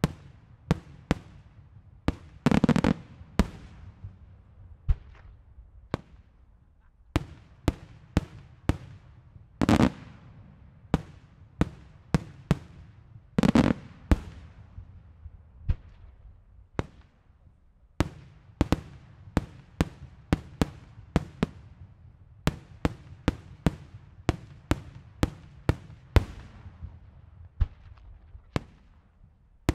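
Daylight fireworks display: aerial shells bursting overhead in an uneven run of sharp bangs, about one or two a second. A few heavier, longer booms stand out among them.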